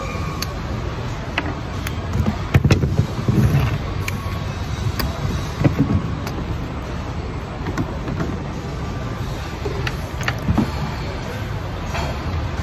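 Short plastic and metal clicks and knocks as car door latch units and their cables are handled and clipped together on a workbench, loudest in a cluster about two and a half seconds in and again near six seconds. Under them runs a steady low drone of factory machinery.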